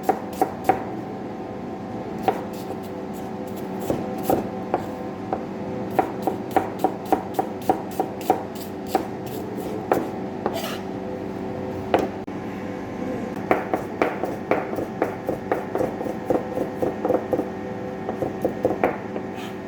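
Kitchen knife chopping on a chopping board: runs of quick, even strokes about three a second, with short pauses between runs.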